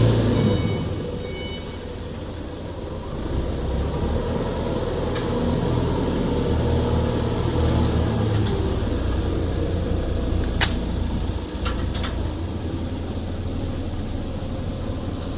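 Steady low machinery hum with a few short, sharp clicks and knocks, typical of hands working on metal machine parts.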